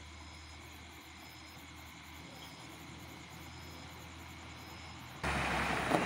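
Faint night background with a faint, regular high chirp of insects, then about five seconds in a sudden, loud rush of noise from an approaching truck.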